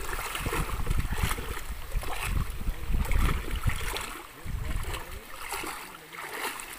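River water lapping and splashing against a small open fishing boat, with wind gusting on the microphone that eases about four and a half seconds in.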